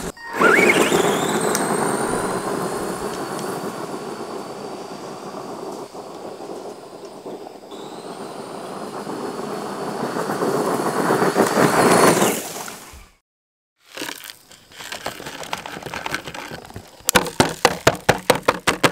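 Arrma Granite RC monster truck driving on gravel: a steady high electric-motor whine over the crunch of its tyres, the whine climbing in pitch as it speeds up about twelve seconds in before cutting off suddenly. Near the end comes a quick run of sharp clicks.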